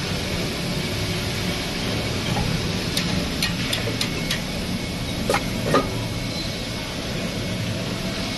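Injection molding machine running with a steady low drone. A run of light clicks comes about three to four seconds in, followed by two louder knocks a second later.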